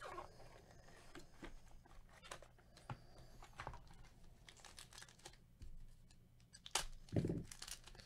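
Foil-wrapped trading-card pack handled with gloved hands: faint crinkling and scattered clicks of the foil as it is lifted out of its box and torn open. A brief low hum comes near the end.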